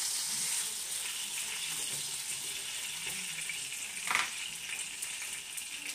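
Halved tomatoes frying in oil in a frying pan, sizzling with a steady hiss, and a short knock about four seconds in.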